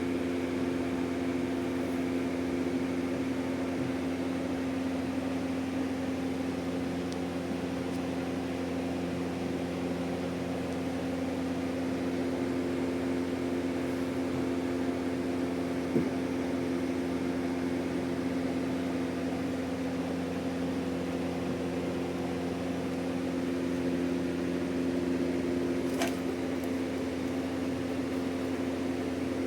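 Electric polishing machine running steadily with an even motor hum while a steel blade is polished to a mirror finish, with a couple of brief ticks partway through.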